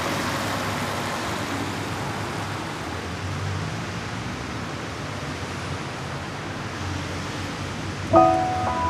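A car rolling slowly over wet pavement, giving a steady hiss of tyres on water. Near the end a few chiming music notes come in.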